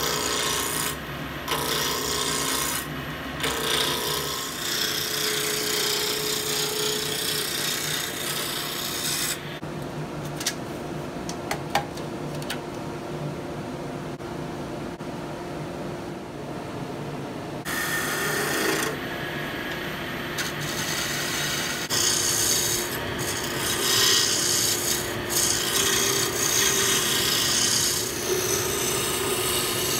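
Wood lathe spinning an olive wood spindle while a turning tool cuts it: a continuous shaving hiss over the lathe's steady motor hum. The cutting goes duller and lighter for several seconds in the middle, then comes back stronger.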